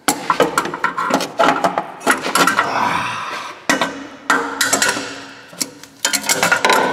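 Hand tools clinking and knocking against metal under a pickup truck while an O2 sensor and its connector are worked free: an irregular run of sharp clicks and clatters, some ringing briefly.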